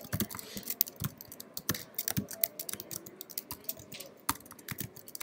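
Computer keyboard being typed on quickly: a run of irregular keystroke clicks as code is entered.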